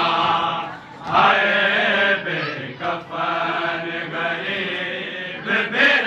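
Men reciting a noha, a Shia Muharram mourning lament: a lead voice singing through a microphone in long held notes, with other men's voices chanting along.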